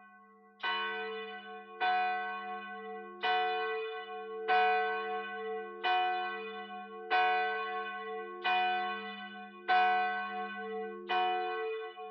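A single church bell tolling, nine evenly spaced strokes about a second and a quarter apart, each stroke still ringing when the next one falls.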